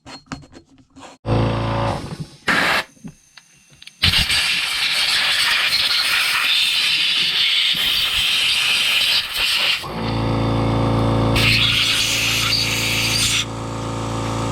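Small electric power tool running: a steady motor hum that starts in short spurts, then a loud harsh grinding hiss from about four to ten seconds in, then the motor running steadily again.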